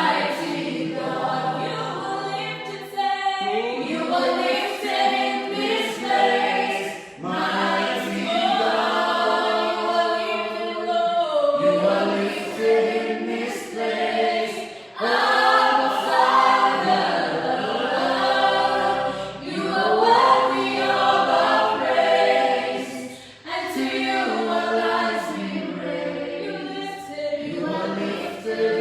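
A church praise team singing a praise song together, several voices in harmony. The singing comes in phrases a few seconds long, with short breaks between them.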